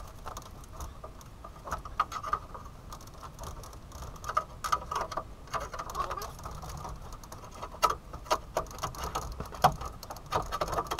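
Pry bar working the bent sheet-steel radiator core support of a Chevy S-10 pickup: irregular metal clicks and knocks with scraping and creaking, a few sharper knocks among them.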